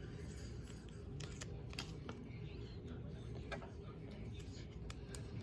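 Scattered light clicks and rustles from handling small plastic toy pieces and a sticker sheet, over a steady low hum.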